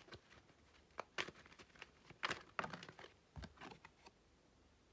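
Oracle cards being handled on a table: a few light, scattered taps and rustles.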